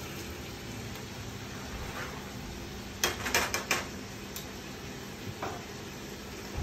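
Chicken thighs frying quietly in a skillet, with a quick run of sharp metal clicks about three seconds in from kitchen tongs clacking.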